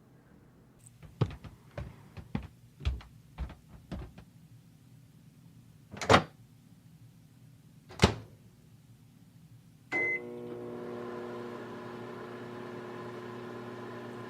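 A few soft thumps, then two loud clunks a couple of seconds apart, a short beep, and a microwave oven starting up and running with a steady hum, heating a bear-shaped microwavable heat pack.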